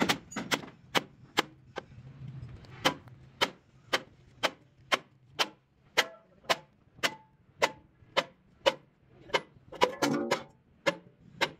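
Hand hammer striking a steel truck chassis rail in a steady rhythm of about two blows a second, each blow a sharp metallic hit, with a short pause about two seconds in.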